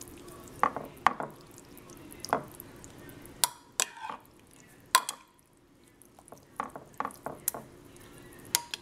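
A spoon stirring cooked macaroni, shredded cheese and milk in a baking dish: wet stirring with irregular clicks and knocks of the spoon against the dish, about a dozen, spread throughout.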